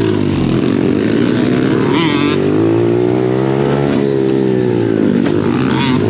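Small pit bike engine revving up and down as the bike is ridden hard along a dirt trail, the pitch rising and falling several times. A brief higher-pitched sound cuts through about two seconds in and again near the end.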